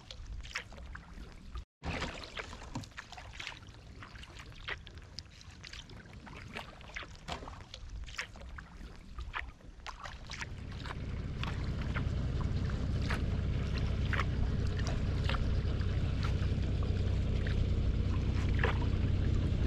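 Carbon kayak paddle dipping into calm water, with small splashes and water dripping and trickling off the blades in a run of short ticks. About halfway through, a steady low rumble comes in and grows louder.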